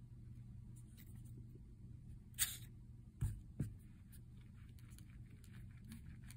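Plastic play-dough knife cutting modelling dough on a tabletop mat: a brief scrape about two and a half seconds in, then two soft knocks of the knife or hand on the mat, over a faint steady hum.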